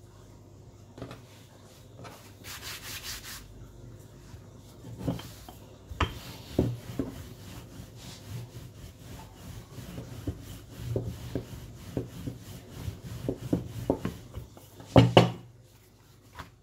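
Hands rubbing flour over a sheet of fresh noodle dough and folding it on a countertop: soft brushing and rubbing with scattered light knocks, and a louder thump near the end.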